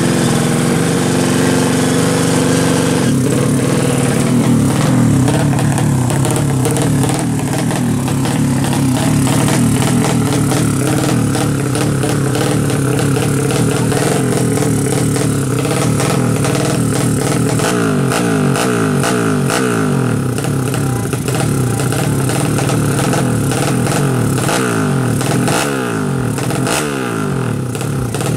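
Drag motorcycle engines of the 200 cc SOHC four-stroke class running loud. They hold a steady idle at first; in the second half they are revved up and down again and again, the pitch rising and falling in quick blips.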